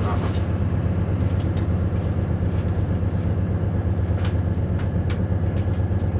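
Steady low diesel engine hum heard from inside a Class 222 Meridian carriage standing at the platform, with a few light clicks.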